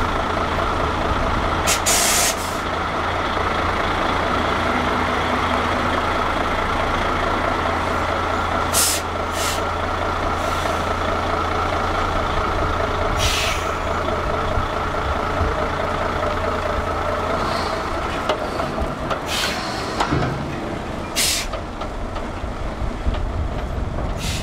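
Heavy truck's diesel engine running steadily at idle, with about half a dozen short hisses of released air from its air brakes, the loudest about two seconds in.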